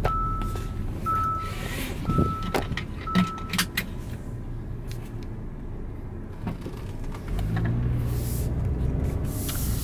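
Inside a car: four short electronic warning chimes at one steady pitch, about a second apart, with a few handling knocks. From about seven seconds in, the car's low engine and road rumble grows louder.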